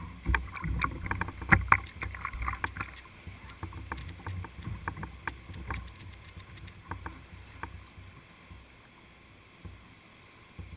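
Whitewater canoe running a river rapid: rushing water with frequent sharp splashes, slaps and knocks from paddle strokes and waves against the boat. These are busiest in the first three seconds, then thin out over the steady rush of the water.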